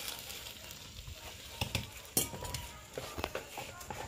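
Ground thuthuvalai chutney frying in oil in a kadai, sizzling steadily as it is stirred. A few sharp clatters of a utensil against the pan come in the second half.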